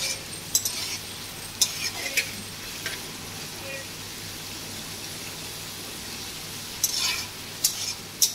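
Prawns sizzling in hot oil in an aluminium kadai, stirred with a spatula that scrapes the pan in short strokes during the first few seconds and again near the end, with a steadier sizzle in between.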